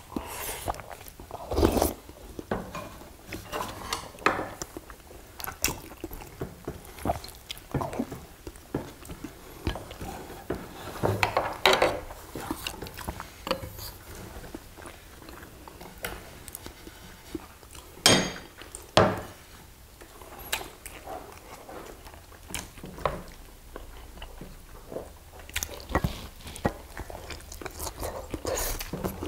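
People eating at a table: chewing and biting, with chopsticks and spoons clicking and knocking against ceramic bowls and plates. A few louder knocks about 2, 12, 18 and 19 seconds in.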